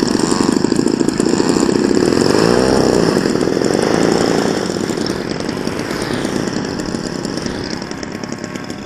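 Small two-stroke gasoline engine of a quarter-scale RC model aircraft, a 26cc class engine, running close by with a rapid buzzing beat. Its pitch wavers in the first few seconds, and it grows gradually softer from about halfway through.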